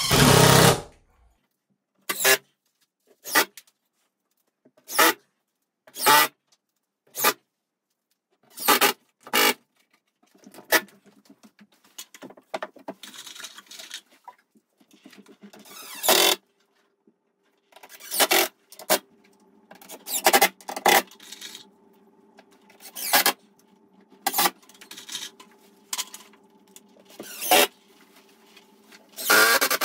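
Cordless DeWalt impact driver sinking plasterboard screws into the wall, in a long series of short bursts, each under a second, with pauses between them.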